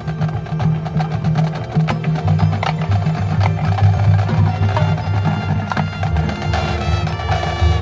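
Marching band performing: low brass holding sustained notes under many sharp percussion strikes, with bell-like tones above.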